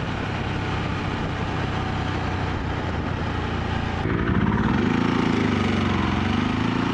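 Motorcycle engine running while riding. About four seconds in the sound changes abruptly and gets a little louder, and the engine note rises and falls.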